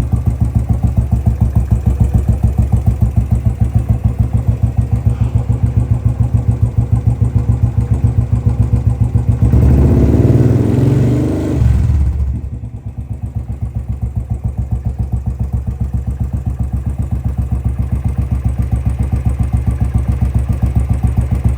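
Royal Enfield Classic 500's fuel-injected single-cylinder engine idling with an even, steady thump after a cold start. About ten seconds in it is blipped for a couple of seconds, then it drops back to idle.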